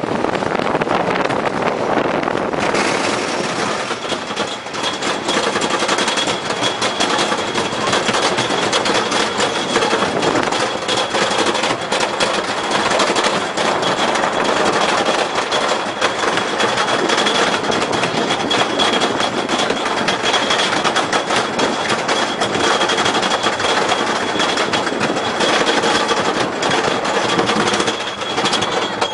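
Wooden roller coaster train being hauled up its chain lift hill: a fast, continuous rattling clatter of the lift chain and anti-rollback ratchet, with a steady high whine, setting in about two and a half seconds in after the train rolls along the wooden track.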